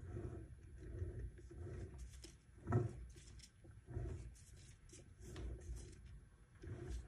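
A torque converter being rotated back and forth by hand as it is pushed onto the input shaft of a Ford 5R55S automatic transmission. It makes low rubbing and soft bumps about once a second, with one sharper knock about three seconds in. The distinct clunks that mark the converter dropping into engagement are not heard, so it is not yet fully seated.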